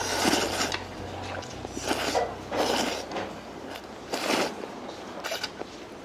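A person slurping udon noodles from a bowl of broth in a string of short slurps, about five or six of them.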